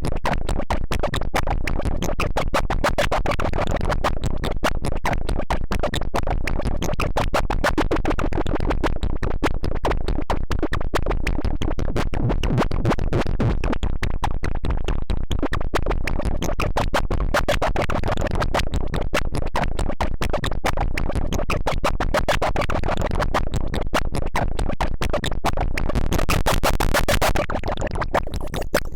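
Electronic music track made in FL Studio Mobile, built from very rapid, glitchy stuttering hits with a scratch-like texture. The top end drops away shortly before the end.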